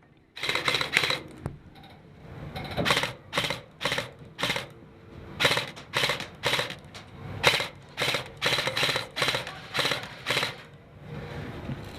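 An irregular series of sharp clacks and knocks, roughly two a second with short pauses, fading toward the end.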